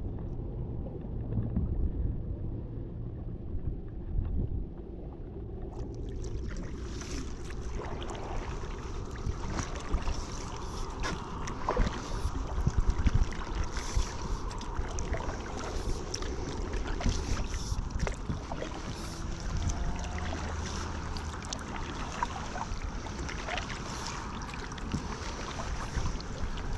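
Wind rumbling on the microphone over water splashing and dripping around a kayak as it is paddled. From about six seconds in the water sounds grow brighter, with scattered small knocks and clicks.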